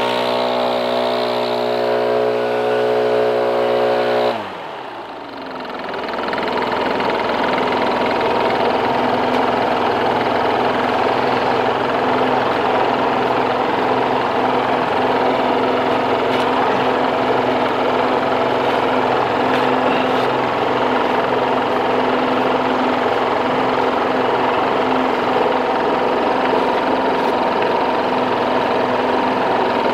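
A small engine running at speed winds down about four seconds in, its pitch falling away. After a brief dip an engine comes back up and runs steadily for the rest of the time.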